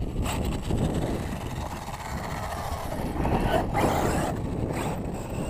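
Wind buffeting a body-worn action camera's microphone, with crunching steps on loose gravel and dirt. About four seconds in, a louder scrape as a hand takes hold of the radio-controlled truck.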